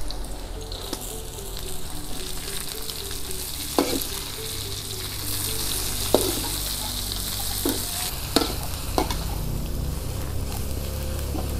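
Oil sizzling in a steel wok as chillies, shallots and noni leaves are stir-fried, with a metal spatula scraping and knocking against the pan about five times.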